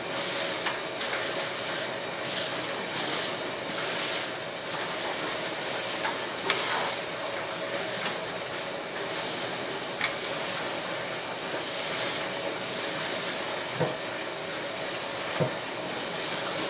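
Hands rubbing a crinkled sheet of thin plastic covering film flat against a tabletop: a crisp rustling crinkle with each stroke, in irregular short sweeps about one or two a second.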